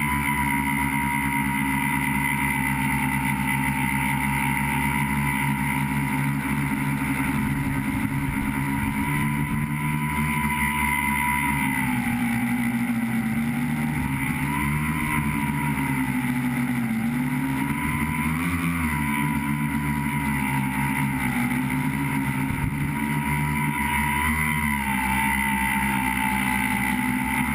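Tricopter's three electric motors and propellers whining steadily, heard close up from the onboard camera. From about halfway through, the pitch dips and wobbles as the throttle changes.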